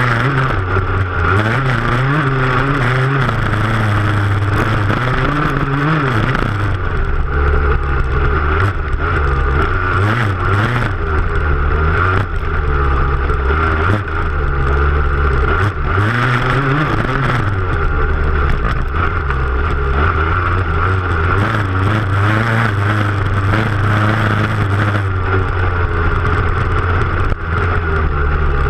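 Dirt bike engine heard from a camera on the rear fender, revving up and falling back again and again as the rider accelerates and shifts across rough ground. Knocks from bumps and thrown dirt, and wind noise, run under the engine.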